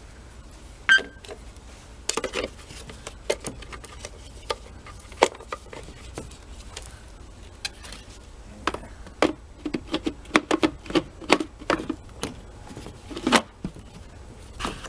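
Plastic clicks and knocks from a vacuum cleaner's filter and housing being handled, fitted and screwed back together, with a quick run of clicks past the middle and a sharper knock near the end.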